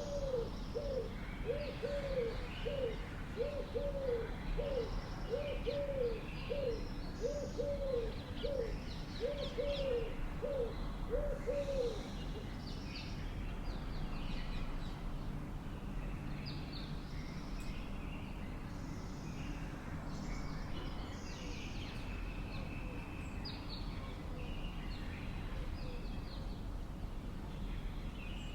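Birds calling: a low, repeated call of a short note followed by a longer one, about one pair a second, that stops about twelve seconds in. Many short high chirps and twitters from other birds run throughout.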